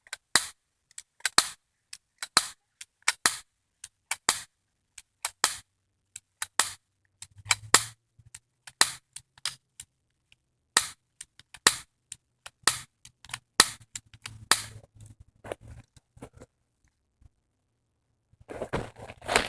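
Irregular string of sharp, short gun cracks, about two dozen, some in quick pairs, from guns being fired back and forth. A rustling scramble comes near the end.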